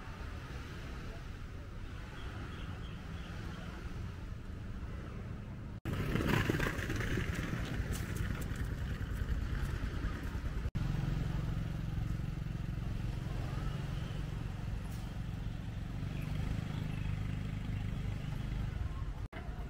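Outdoor street ambience with a steady low hum of distant motor traffic, cut together from several takes. A louder stretch about six seconds in carries scattered clicks and rattles, and from about eleven seconds the low traffic hum is steadier and stronger.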